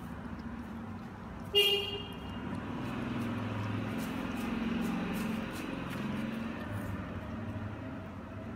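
A short horn toot on one steady pitch about a second and a half in, the loudest sound, over a steady low background rumble.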